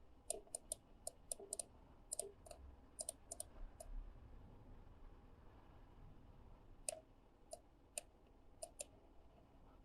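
Faint computer mouse clicking: a quick run of about a dozen clicks in the first few seconds, a pause, then a handful of scattered clicks near the end.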